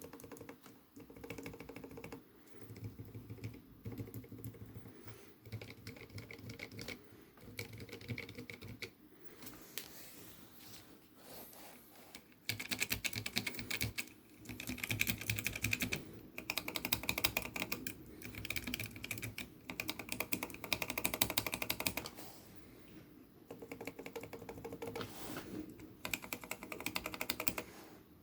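Kailh Choc Red low-profile linear keyboard switches being pressed rapidly, clacking in runs of quick keystrokes with short pauses between them; the louder, denser runs come in the middle. Some of the switches are lubed with Krytox 205g0 and the rest are dry.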